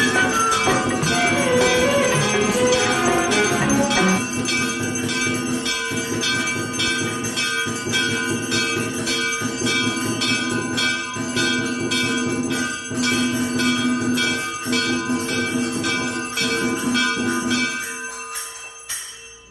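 Temple bells ringing without pause, struck in a steady, regular rhythm with a lingering ring, and dying away near the end. The tail of a sung devotional melody is heard over them in the first few seconds.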